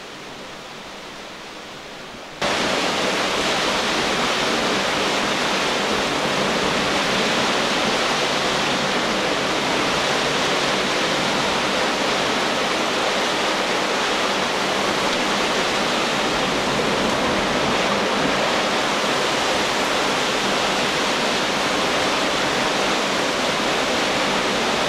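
Steady, loud rushing hiss of torrential rain and gale-force wind at sea, coming in suddenly about two and a half seconds in after a quieter start.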